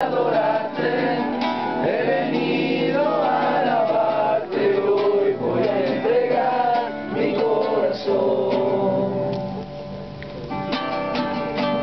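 Acoustic guitar strummed with a man singing over it: a worship song, with a quieter moment about ten seconds in before the guitar strums come back clearly.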